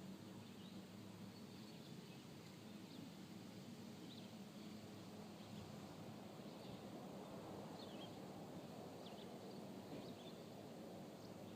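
Faint outdoor background with scattered short, high bird chirps over a low steady hiss.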